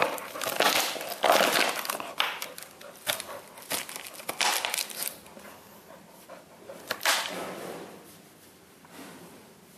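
Empty plastic bottle crinkling and crackling as a Siberian husky chews it, in repeated bursts over the first five seconds and once more about seven seconds in, then quieter.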